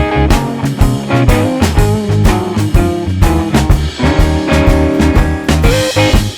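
Background music: an upbeat guitar-led rock/blues track with a steady drum beat.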